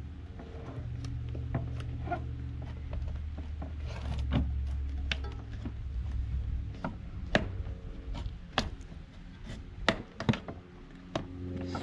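Plastic tire levers prying a mountain-bike tire bead over the rim against a CushCore insert: irregular sharp clicks and knocks of lever on rim, with rubbing of tire rubber.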